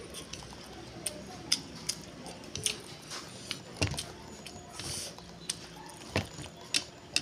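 A person eating Korean ramen noodles with chopsticks, chewing with wet mouth clicks and smacks about once a second and a short slurp about five seconds in.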